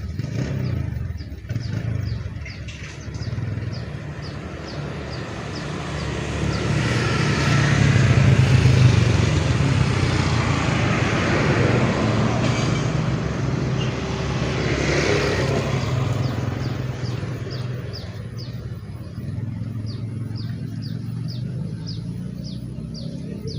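A motor vehicle passing by: its engine noise swells over several seconds, is loudest about eight seconds in, then slowly fades. Rapid high chirping is heard near the end.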